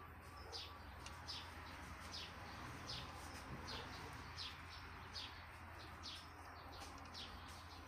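A bird chirping repeatedly: short, high, falling chirps about one to two a second, faint, over a steady low hum.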